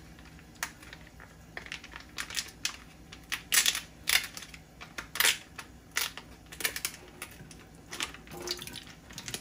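Plastic packaging of a silken tofu tub crackling and crinkling as it is handled and peeled open by hand: a run of irregular sharp snaps, loudest around the middle.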